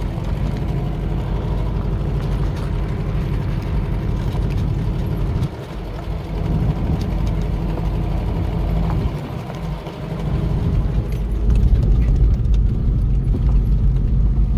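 1986 Subaru Brat's flat-four engine pulling the pickup slowly up a rocky dirt road. The engine sound dips briefly twice and grows louder over the last few seconds.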